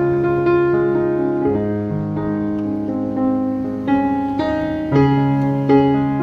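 Piano music, held chords and notes changing every second or so.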